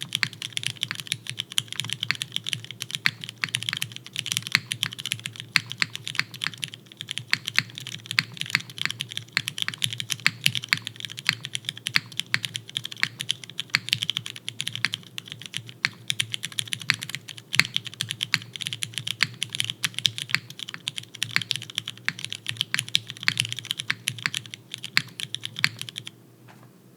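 Continuous rapid typing on a custom mechanical keyboard with retooled Cherry MX Brown tactile switches, lubed with 205g0, filmed, and fitted with 62g springs, mounted in a carbon fibre plate on an O-ring mount with GMK keycaps. The typing stops abruptly about a second before the end.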